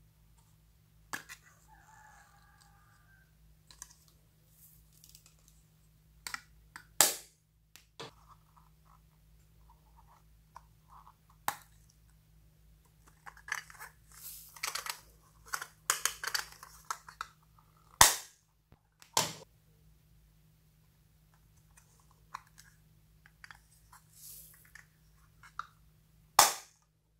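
Several sharp plastic clicks, the loudest near the end, as toy-shaped plastic containers snap open and shut. In the middle, foam beads rattle and crackle as they are poured into slime.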